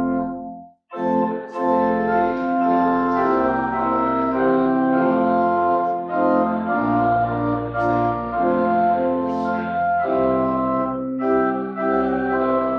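Organ music: chords in long held notes. It stops briefly under a second in, then carries on.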